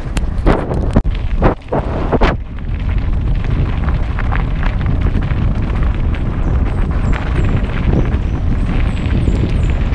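Heavy wind noise buffeting the microphone of a camera on a moving mountain bike on a gravel road. Several sharp knocks come in the first two seconds, and faint high chirps come in the second half.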